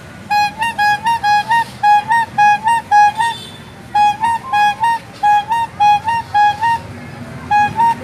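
Hand-squeezed rubber-bulb trumpet horn of an es potong ice-pop vendor's pushcart, sounding rapid two-note toots, about four a second. It plays in two runs of about three seconds each with a short break, and starts again near the end.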